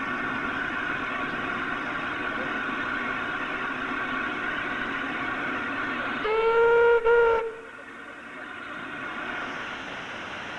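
Hunslet J94 0-6-0 saddle tank steam locomotive: a steady hiss of steam, then about six seconds in a blast on its steam whistle, just over a second long with a brief break near its end. Once the whistle stops, the hiss is quieter.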